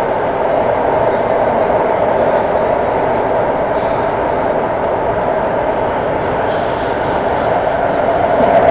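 Santiago Metro AS-14 train running through a tunnel, heard from inside the car: a steady, continuous running noise of wheels on rail that grows a little louder near the end.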